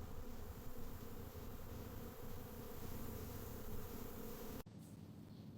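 A steady insect buzz, like a bee flying close by, which cuts off abruptly about four and a half seconds in and gives way to quieter outdoor background.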